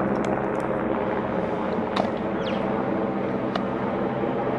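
Electric rack-railway railcar of the Jungfrau Railway approaching, a steady hum from its motors and drive, with a few sharp clicks, a louder one about two seconds in.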